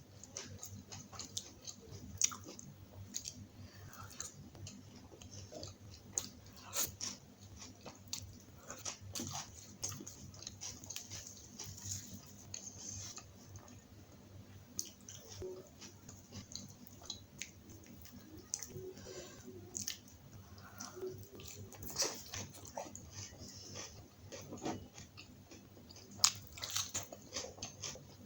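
Close sounds of a person eating butter naan and kadai paneer: chewing with wet mouth clicks and smacks at irregular intervals.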